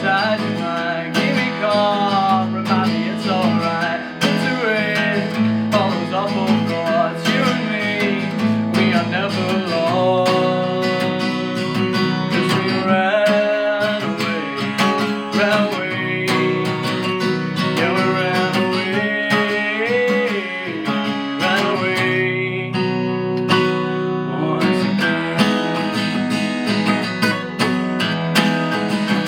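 Acoustic guitar strummed and picked as song accompaniment, with a man's voice singing over parts of it.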